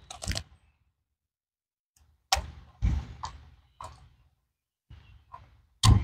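Several short, sudden knocks and thuds, about seven of them, scattered with silence between, the loudest near the end.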